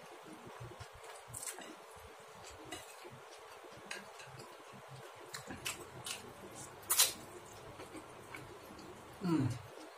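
Close-up eating sounds of a man eating fried instant noodles: wet chewing and mouth clicks with light taps of chopsticks and spoon on a plate. There is one sharper click about seven seconds in and a short falling whine near the end.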